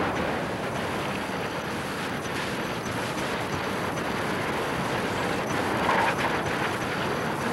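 Steady rushing noise of wind and engine from the filming craft, with no clear rhythm and a brief louder swell about six seconds in.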